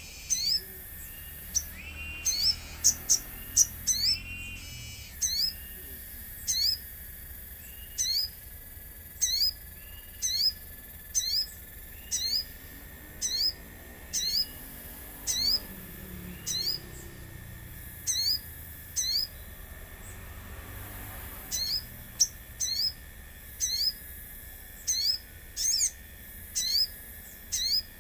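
Spiderhunter (sogon) calling a short, sharp, high note over and over, about once a second, with quicker clusters of notes around 3 seconds in and near the end. A faint steady high tone runs beneath.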